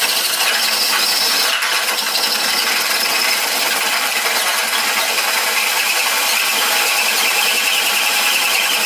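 Cordless drill with a slow-turning right-angle drive running steadily under load, its old, dull bit squealing as it cuts a hole through a steel beam's flange.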